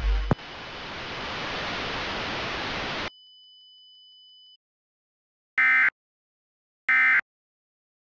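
Music cuts off and gives way to a few seconds of static hiss, then a faint steady high tone and a pause. Two loud, shrill data bursts follow, about a second and a half apart: the SAME digital header of an Emergency Alert System test.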